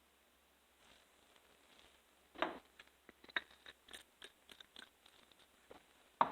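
Irregular small clicks and scrapes of ratchet parts being handled and greased on the bench, with a louder one about two and a half seconds in and another near the end.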